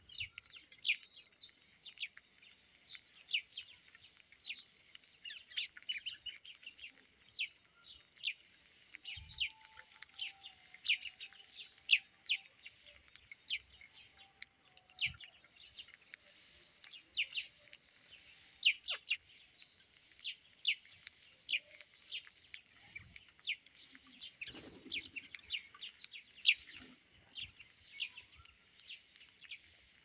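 Birds chirping: a dense, continuous run of short, high chirps, several a second, with no real pause.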